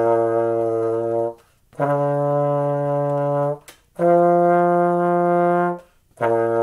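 Trombone playing long held whole notes, each about two seconds with a short breath between. The first low note ends in the first second and a half, the next two climb in pitch, and the low first note returns near the end.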